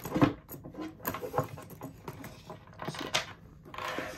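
Gold-tone metal chain strap and snap-hook clasps of a Louis Vuitton Papillon Trunk clinking and jangling as the strap is clipped on and the bag is lifted, with leather rustling. Irregular clicks, the loudest about a quarter second in.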